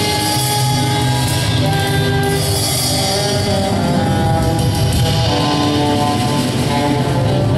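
Live jazz trio: saxophone playing long held notes over plucked double bass and a busy drum kit with steady cymbal work.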